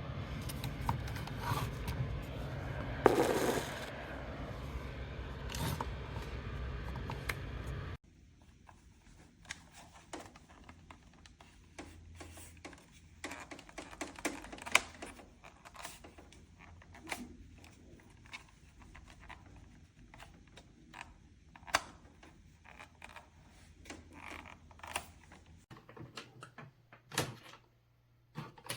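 Scattered clicks, knocks and scrapes of objects being handled. The first part carries a steady low hum and one loud knock about three seconds in, then the hum stops suddenly and only quieter, irregular clicking goes on.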